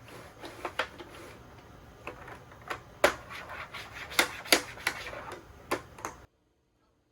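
A run of irregular sharp clicks and taps, a few of them much louder, that cuts off abruptly about six seconds in.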